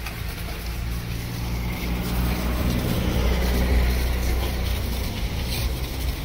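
Pressure washer running, its water jet spraying against a motorcycle's front wheel and fork: a steady low motor drone under the hiss of the spray, swelling a little in the middle.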